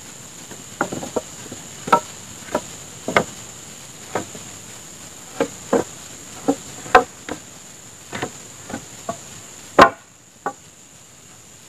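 Irregular chopping strokes of a blade into wood, about one or two a second, the loudest near the end. A steady high insect drone runs underneath and stops shortly before the end.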